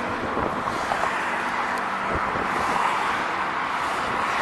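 Steady road traffic noise, with wind on the microphone.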